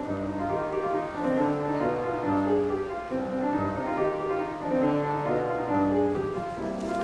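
Grand piano played solo: a classical-style piece of held notes and chords that change every half second or so.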